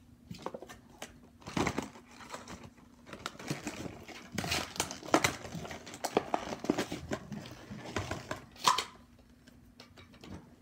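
Plastic packaging crinkling and rustling, with irregular sharp clicks and knocks from a plastic airsoft rifle being handled and its parts fitted together.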